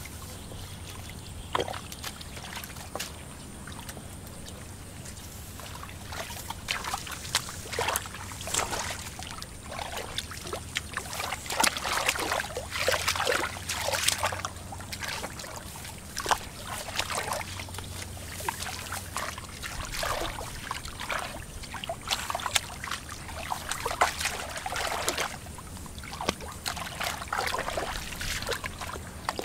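Hands and legs splashing and sloshing in shallow muddy water while groping through the mud for fish, with irregular bursts of splashing and dribbling that grow busier a few seconds in.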